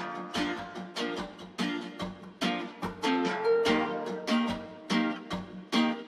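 Background music: a plucked guitar picking out a melody, about two notes a second, each note ringing and fading.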